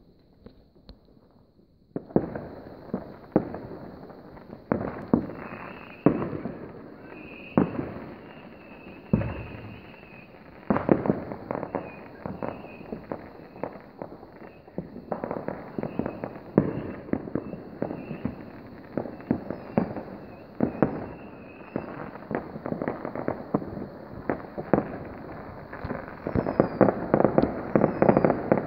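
Fireworks and firecrackers going off across a town, a dense run of sharp bangs near and far over a continuous crackle. It starts about two seconds in and grows thicker and louder near the end.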